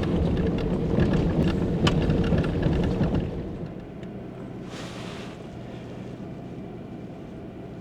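Vehicle driving along a dirt forest trail: the engine runs under a rumble of tyres over gravel and rock with many sharp knocks and rattles, then after about three seconds it settles into a quieter, steady hum, with a brief hiss about five seconds in.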